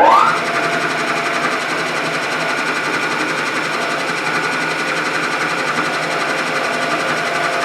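Milling machine spindle motor running steadily, after winding up in pitch just at the start.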